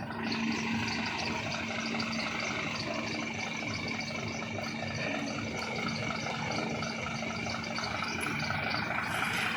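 Heavy truck engine running steadily, with no sharp events.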